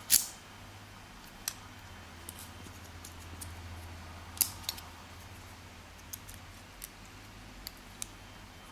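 Small, sparse metal clicks and taps as a shim is worked into a lock cylinder, over a faint steady low hum.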